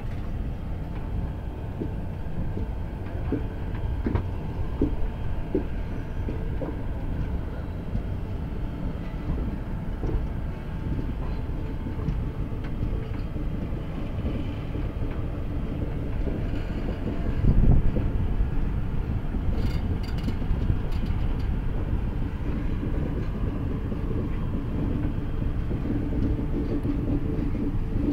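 Indian Railways passenger train running on the rails, heard from inside the coach through an open window: a steady low rumble with a few sharp wheel clicks over rail joints, and one louder thud about two-thirds of the way through.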